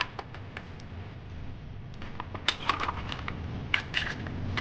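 Cooked green mussel shells clicking and clacking against each other and a plastic bowl as they are moved in by hand: a few light clicks near the start, then a quick cluster of them in the second half.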